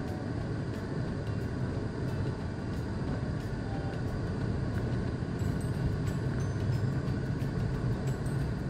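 Steady rumble of a car and the surrounding slow city traffic, recorded by a dashcam's microphone.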